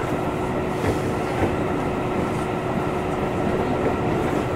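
Tobu Railway 8000-series electric train running along the line: a steady rolling rumble with a constant hum, and a few faint clicks of the wheels over rail joints.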